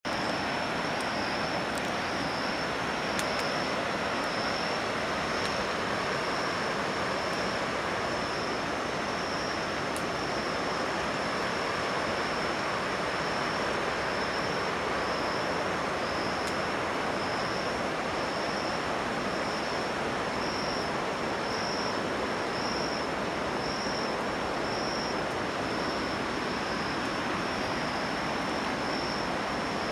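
Steady rushing of a swollen river's current, with a thin high buzz that pulses about once a second and a few faint clicks.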